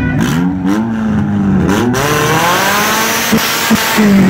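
Car engine revved hard in short blips, its pitch rising and falling several times, then a long climbing rev with two sharp pops near the end as a car accelerates past close by.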